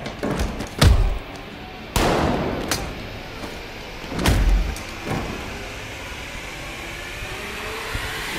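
Action-film fight soundtrack: heavy hits about one, two and four seconds in, the one at two seconds a sudden crash that settles into a steady rumble, with music underneath.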